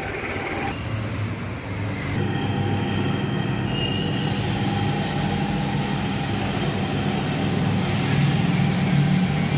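A steady mechanical drone with a low hum that gets louder about two seconds in.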